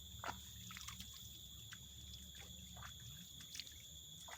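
Faint outdoor background: a steady high-pitched whine, a low hum and a few small scattered ticks.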